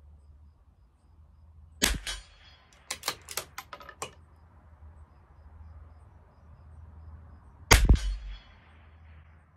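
Two shots from a CZ 457 LRP bolt-action .22 LR rimfire rifle, about six seconds apart. About a second after the first shot the bolt is worked in a quick run of sharp metallic clicks, ejecting the spent case and chambering the next round.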